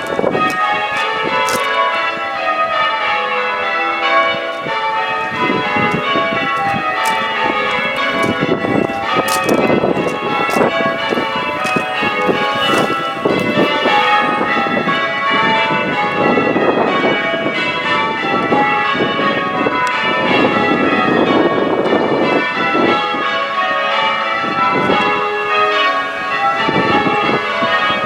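The front six bells of an eight-bell church tower being rung in changes: a continuous stream of evenly spaced strokes, the bells striking one after another in shifting order.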